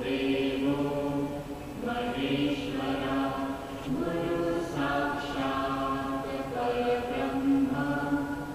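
Devotional chanting: voices singing a chant in long held notes, phrase after phrase.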